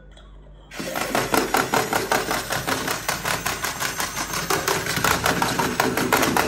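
Electric tumbling monkey toy overdriven from a bench DC power supply at about 17 volts, its small motor and plastic gearbox running fast with a rapid, loud clatter that starts suddenly under a second in. The toy's plastic arms flail and knock as it flips over.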